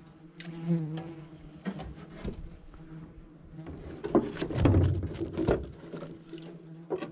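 Flying insects buzzing close to the microphone in a steady drone. A run of knocks and rustles around four to five and a half seconds in is the loudest part.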